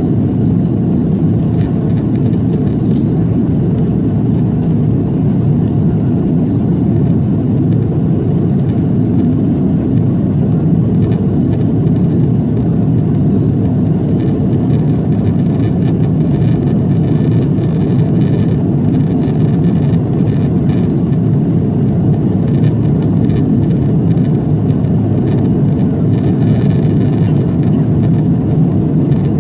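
Steady low rumble inside the cabin of an Airbus A340-300 climbing after takeoff: the noise of its four CFM56 engines and the airflow over the fuselage, heard from a window seat.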